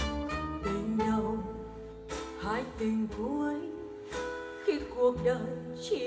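Instrumental break of a Vietnamese love ballad: a lead melody with sliding notes over a steady bass line.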